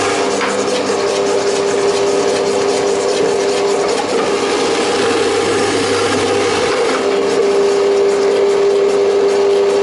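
Electric stand mixer's motor driving its vegetable grater attachment, shredding carrots: a steady motor hum under the continuous noise of the carrots being grated.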